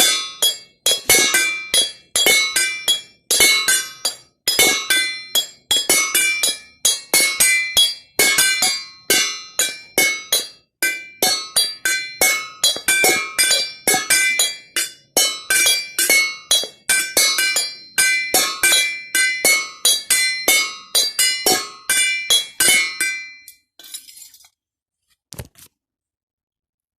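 Glasses struck in quick succession to play a ringtone melody, each tap a bright ringing clink at its own pitch. The playing stops a few seconds before the end, leaving a faint rustle and one low thump.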